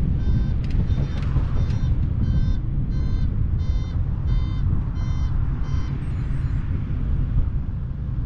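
Evenly repeated high electronic beeps, about three every two seconds, stopping about six seconds in, over the steady low rumble of a velomobile rolling along.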